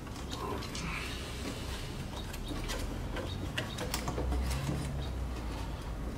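Light, scattered clicks and taps of hands fitting an aftermarket charge pipe and its bolts, over a low steady hum.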